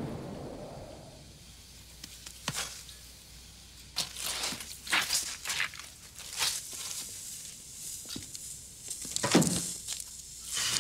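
The low rumble of an explosion dies away over the first second or so. Then come scattered short, sharp crackles and knocks as sparks and debris settle.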